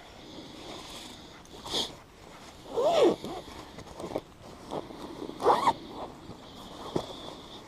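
A zipper pulled in about four short, separate strokes, the loudest near the middle.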